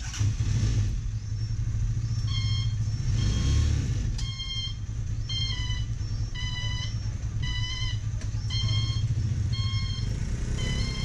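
Three-wheeled auto-rickshaw's small engine running with a steady low rumble while it backs up, its reversing beeper sounding a repeating beep about once a second from about two seconds in.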